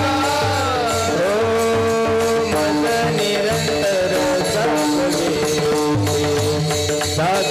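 Marathi kirtan devotional music: a melody sung in long, drawn-out notes over a steady drum beat, with small hand cymbals (taal) striking in time.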